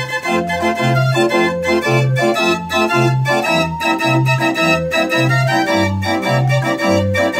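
Book-operated mechanical organ with wooden pipes playing a tune from folded cardboard book music: a bass alternating between two notes about twice a second under chords and melody.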